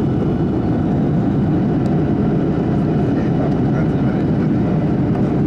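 Steady cabin noise inside a Boeing 737-800 at altitude: the constant, even rush of its CFM56 turbofans and the airflow over the fuselage, heavy in the low range and unchanging throughout.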